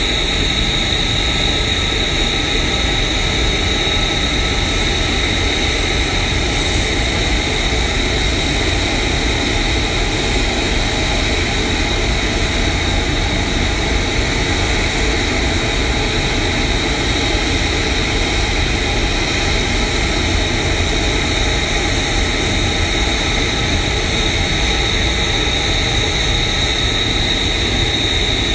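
F-35B's Pratt & Whitney F135 jet engine running steadily while the jet stands still on deck: a constant high whine over a loud, even rush.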